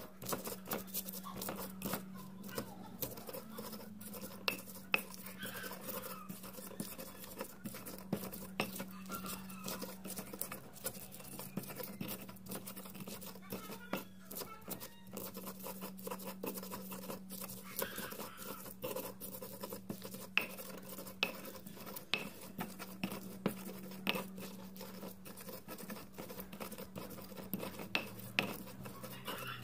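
Stone pestle grinding and crushing wet chilies, shallots and garlic on a flat volcanic-stone mortar (Indonesian ulekan and cobek): irregular scraping strokes and stone-on-stone knocks, with a steady low hum underneath.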